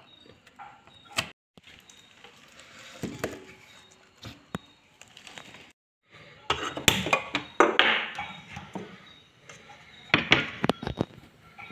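Kitchen handling sounds: a knife cutting okra against a wooden chopping board, then sharp clatters and knocks of a pan at a gas stove as roselle leaves and okra go into it.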